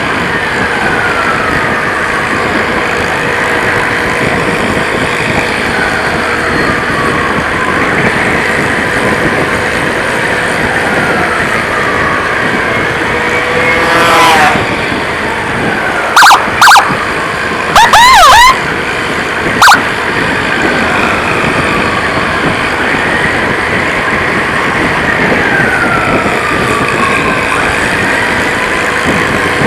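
Ambulance siren repeating a falling sweep about every three seconds, with a rising warble about halfway through. A few short, very loud blasts cut in just after the warble.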